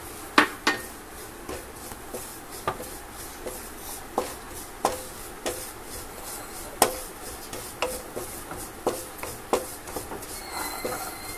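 Wooden spatula stirring and scraping ground coriander roasting in ghee in a nonstick pan, knocking against the pan about once a second with scraping between the knocks.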